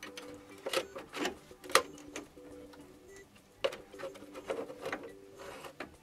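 Irregular clicks and knocks of metal fittings being handled as the cap is worked off a heating-system dirt filter housing, with a few sharper knocks. Behind them, a faint hum of steady tones comes and goes.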